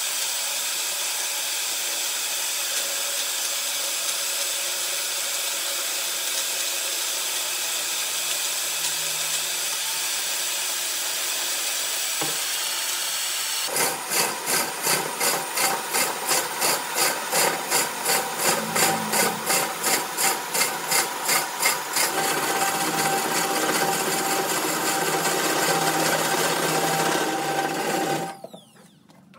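Wood lathe running, with a tool or abrasive held against the spinning wood: a steady hiss, then from about halfway a rhythmic rasping two to three times a second, before the sound drops away near the end.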